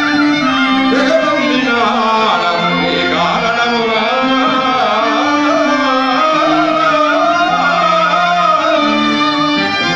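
Live music: a voice singing a long, wavering melody over steady held instrumental notes.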